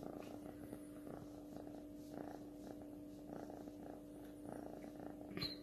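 Kitten purring, a low rumble that swells and eases in a steady rhythm, with a brief noise near the end.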